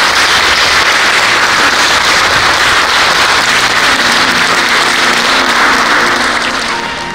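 An audience applauding steadily, then dying away near the end as music begins faintly underneath.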